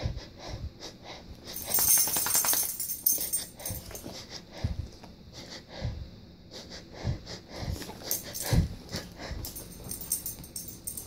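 A person breathing hard and wheezily in a staged panic-breathing pattern, used as a cue to train a PTSD service dog to alert, with a few low thumps between the breaths.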